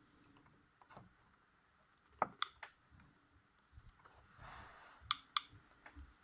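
A few faint, sharp clicks in a quiet room: a pair about two seconds in, another pair about five seconds in, and a soft rustle between them.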